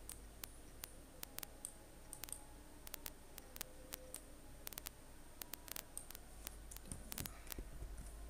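Computer mouse clicking: sharp, irregular clicks, some in quick runs of two or three, over a steady low hum.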